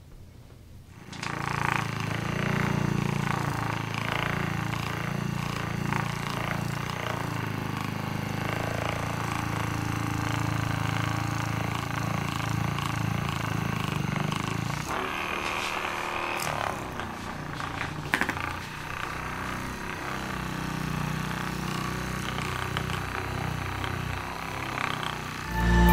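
Handheld electric massager running steadily with a low buzz, easing off for a few seconds midway and then running again.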